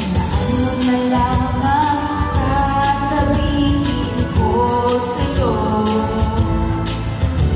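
A woman singing a Tagalog song into a microphone over instrumental accompaniment.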